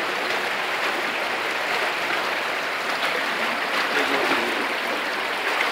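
Shallow stream water running steadily through a narrow rock gorge, an even, constant rush of water.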